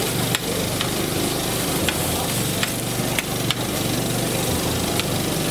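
Meat sizzling on a flat-top griddle while steel tongs click and scrape against the hot plate about eight times as the pieces are turned, over a steady low engine hum.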